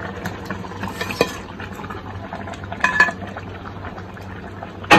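Metal spoon scraping and clinking against the pot as fish masala is scraped out of a pan and spread over partly cooked biryani rice, with a few louder clinks and a sharp knock at the very end. A steady low hum runs underneath.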